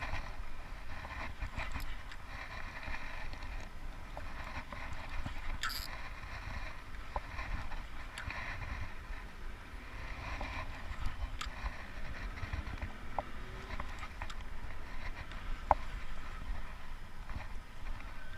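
Outdoor ambience: a steady, fluctuating low rumble with scattered light clicks and ticks.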